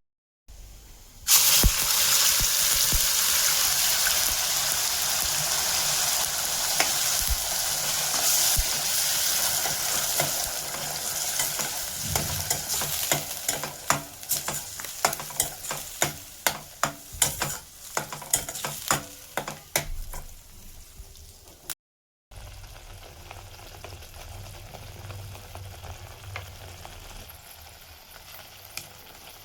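Food sizzling in hot oil in a pan: a loud sizzle bursts up about a second and a half in as ingredients hit the oil, then slowly eases. Partway through, a spoon stirs the pan, clicking and scraping against it many times. After a short break the sizzle continues more quietly.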